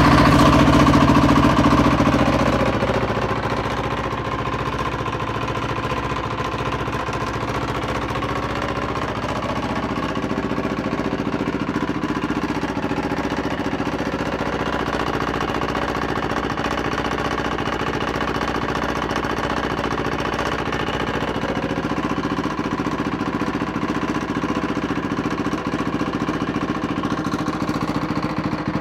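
Yamaha WR450F single-cylinder four-stroke engine running, a little faster for the first couple of seconds and then settling to a steady idle, with a bad knocking sound that the owner takes for a worn connecting-rod big-end bearing; the engine has also lost a lot of power.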